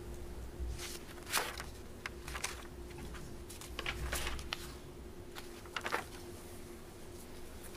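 Quiet room tone with a faint steady hum, broken by a few short, faint rustles and clicks.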